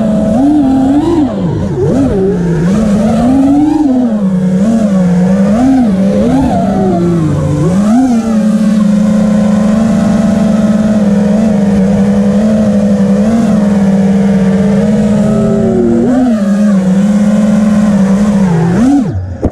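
FPV racing quadcopter's electric motors whining, the pitch swooping up and down with the throttle for several seconds, then holding mostly steady before a few quick swings and a sudden cut-off near the end.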